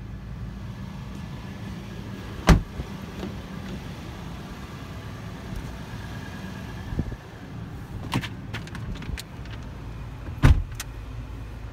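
Two loud thumps about eight seconds apart, with a few lighter clicks between them, over a steady low rumble: pickup truck doors shutting and cabin handling sounds.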